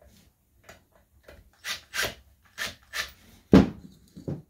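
Wooden canvas-stretcher frame pieces and corner wedges being handled on a work mat: several short scraping rubs of wood on wood, then a heavier thump about three and a half seconds in and a lighter knock just after.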